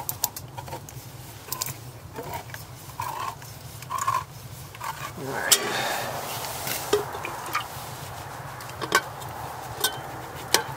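Hand-held can opener cranking around a steel soup can, a run of small clicks and metal knocks, followed from about halfway by a steady rustling hiss for several seconds as the soup goes into an aluminium cooking pot, with a few sharp clinks.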